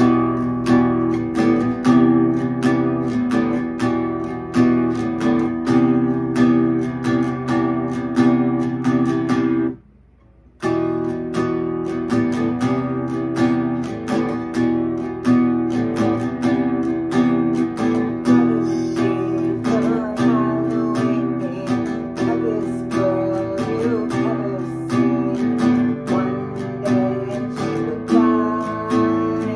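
Acoustic guitar strummed in a steady, regular rhythm, breaking off for under a second at about ten seconds in, then carrying on. From about the middle, a woman's voice sings over it.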